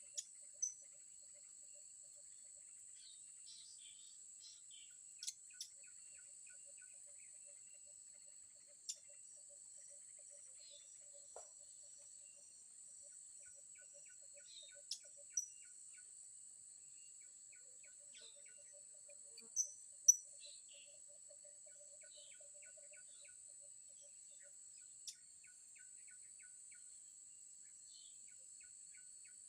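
Steady high-pitched drone of insects such as cicadas or crickets, with faint pulsing ticks beneath it. About ten short, sharp, high bird chirps break through it; the loudest pair comes about twenty seconds in.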